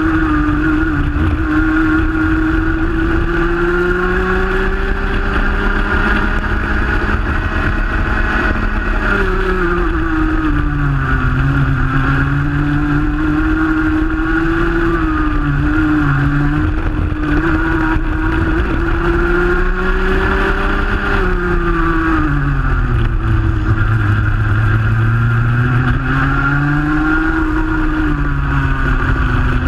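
Rotax Junior Max 125cc two-stroke kart engine at racing speed, heard from on board: its pitch climbs steadily along the straights and drops sharply when it comes off the power for corners, about a third of the way in and again about three quarters of the way in. The engines of the karts running just ahead sit underneath at a lower pitch.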